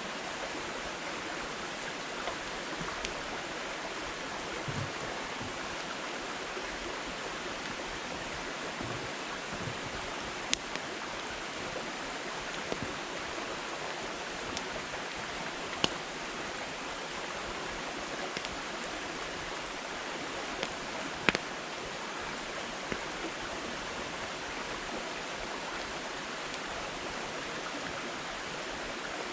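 Firewood burning in a campfire: a steady hiss of flame with scattered crackles and a few sharp pops, the loudest about two-thirds of the way in.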